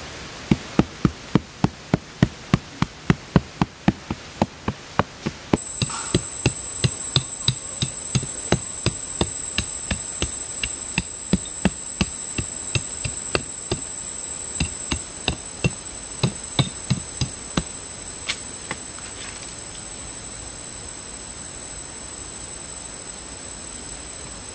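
Repeated strikes of a small hand digging tool chopping into packed earth, about two to three a second, thinning out and stopping about two-thirds of the way through. From about five seconds in, a steady high insect drone runs under them.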